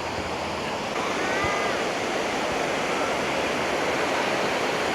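Sea surf washing onto a sandy beach with the tide coming in: a steady rush of breaking waves. A brief faint call, from a distant voice or bird, is heard about a second in.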